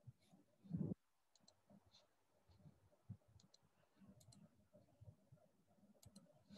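Near silence with faint sharp clicks, mostly in quick pairs, scattered through, and a short low thump about a second in.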